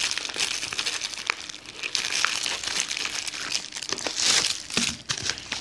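Clear plastic packaging bag crinkling and crackling in the hands, with many small sharp crackles, as snug phone cases are worked out of it.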